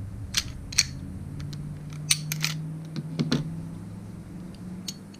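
A Taurus G3 pistol being field-stripped by hand: a handful of sharp metallic clicks and scrapes, spread out, as the slide is worked and drawn off the frame. A steady low hum runs underneath.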